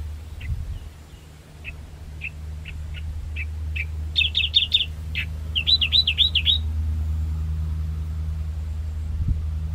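A small bird sings in short single chirps about twice a second, then breaks into a quick trill and a run of looping, rising-and-falling notes. Beneath it a light aircraft's engine drones steadily and grows slightly louder.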